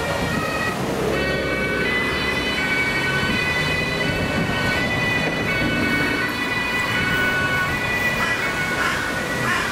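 Ambulance's German two-tone siren (Martinshorn) sounding, switching back and forth between its two pitches, over passing road traffic.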